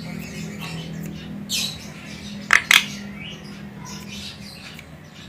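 Javan myna calling: a harsh squawk about a second and a half in, then two short sharp calls in quick succession a second later, with fainter chatter between them. A steady low hum runs underneath.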